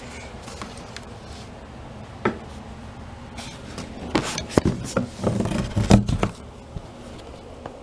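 Handling noises from loading the bottom drawer of a metal filing-cabinet tool cart with a box of rags: a single knock about two seconds in, then a run of knocks and rubbing from about four to six seconds in.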